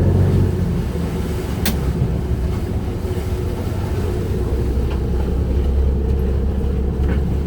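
Trawler fishing boat's engine running with a steady low rumble, with a single sharp click about two seconds in.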